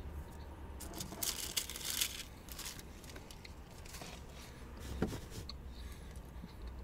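Paper rustling and crinkling in several short bursts, as a paper fast-food wrapper and bag are handled.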